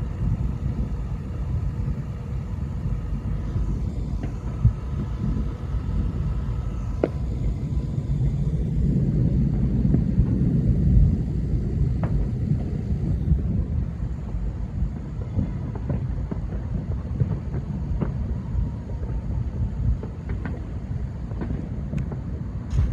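Countless distant fireworks blending into a continuous low rolling rumble, like far-off thunder, with scattered sharper pops and cracks from nearer ones. The rumble swells near the middle.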